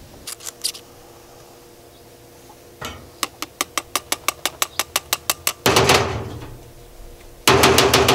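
Power sander working on cedar decking: a run of rapid, even ticking, then two loud stretches of rough sanding noise against the wood, the second starting near the end.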